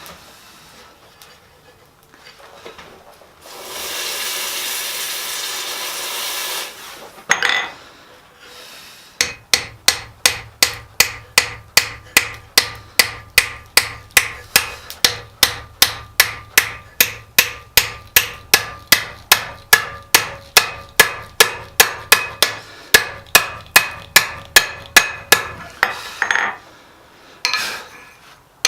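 Hand hammer striking steel on an anvil while forging an S hook: an even run of blows, about two to three a second, for some seventeen seconds, with a few scattered strikes before and after. Early on there is a steady hiss lasting about three seconds.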